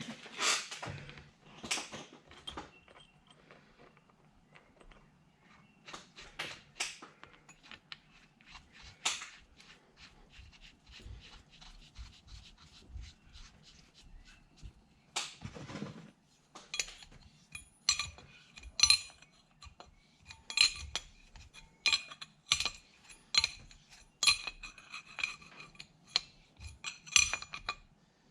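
Small metal pieces clinking and tapping together. The clinks are scattered at first, then come in a busier run of ringing clinks, several a second, over the last ten seconds or so.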